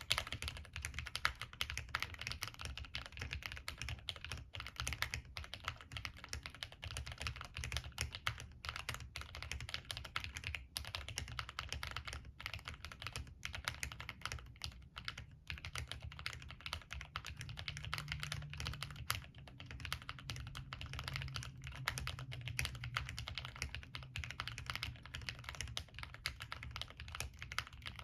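Continuous typing on an MK870 tenkeyless mechanical keyboard built without a plate, with linear Gateron Yellow frankenswitches (milky top, black bottom housing, long-pole stem) and Cherry profile keycaps. Keystrokes come steadily, several a second.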